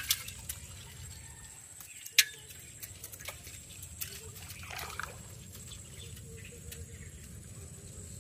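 Water trickling and dripping off a metal pot of freshly caught live shrimp, with a few sharp clicks, the loudest at the start and about two seconds in.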